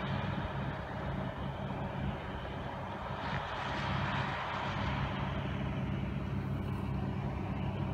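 Diesel farm machinery running steadily at constant speed: an even engine drone with a broad mechanical hiss over it.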